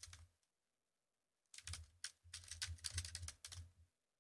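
Faint computer keyboard typing: a few keystrokes right at the start, then a quicker run of keystrokes spelling out a word over the second half.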